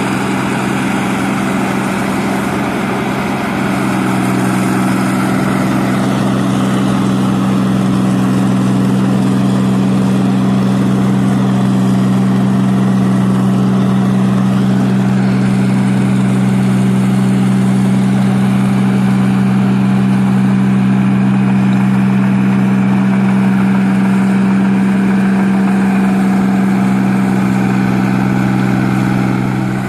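New Holland 8060 combine harvester running at a steady working speed while it cuts rice. Its engine holds one unchanging pitch, a little fuller from about four seconds in.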